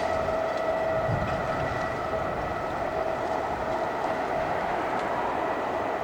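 Freight train rolling past: a steady rumble of wheels on rail with a steady high-pitched tone through it.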